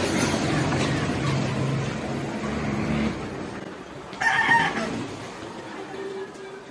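A rooster crows once, briefly and loudly, just after four seconds in. The engine of a passing vehicle is heard as a steady low hum over the first three seconds and then fades.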